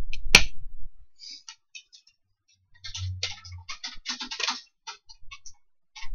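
Plastic DVD case being handled: a sharp plastic snap about half a second in, then a run of light clicks and crackles as fingers work over the case and its clear plastic.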